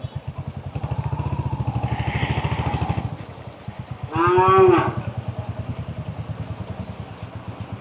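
A cow moos once, loudly, about four seconds in, over a single-cylinder motorcycle engine idling with an even pulse throughout.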